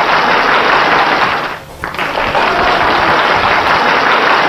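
Heavy rain pouring onto the funicular car's roof and window, a loud, dense hiss that dips briefly a little under two seconds in.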